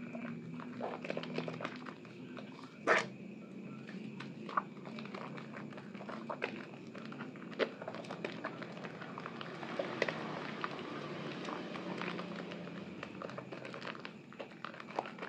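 Hand squeezing and kneading a soaked, mushy bar of Asepso orange soap in thick wet lather: continuous squelching with many small pops and crackles, and one louder squelch about three seconds in.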